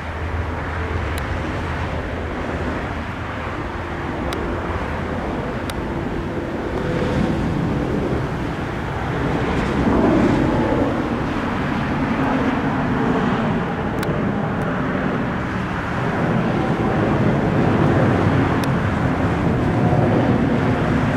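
Airbus A350-900's Rolls-Royce Trent XWB turbofan engines at takeoff thrust, a steady deep jet rumble. It grows louder about ten seconds in and again near the end as the airliner passes and climbs away.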